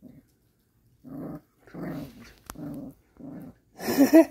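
Jindo puppy growling in a run of short, low bursts over its food bowl: food guarding against another puppy. A louder, higher snarl comes near the end, and a single sharp click sounds about halfway.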